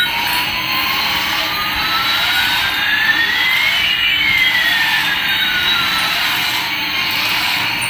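Electronic jet-engine sound effect from a toy Airbus A380 airliner: a hiss with one whine slowly rising in pitch and another slowly falling, the two crossing about halfway through.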